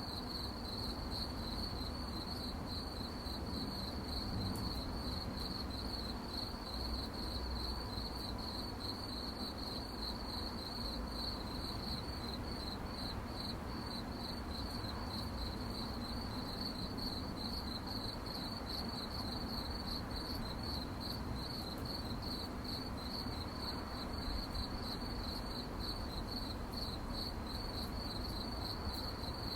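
Crickets chirping at night in a steady, rapidly pulsing high chorus, over a soft low background hiss.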